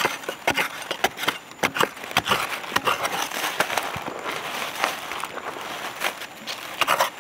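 A small metal digging blade chops and scrapes into dry, crumbly soil, loose earth crackling and trickling. The strokes are irregular and follow each other quickly.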